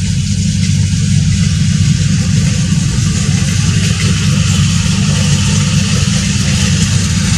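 An engine running steadily, with a low, even drone and a hiss over it.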